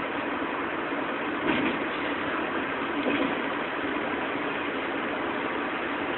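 Steady road and engine noise inside a moving car's cabin, with a couple of soft bumps about one and a half and three seconds in.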